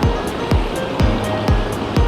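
Background music with a steady beat: a kick drum about twice a second with ticking cymbals over it.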